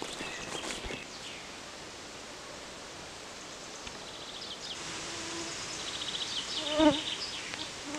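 Forest ambience with a steady hiss, a fast high trill from about five seconds in, and a flying insect buzzing close past the microphone near the end, the loudest sound.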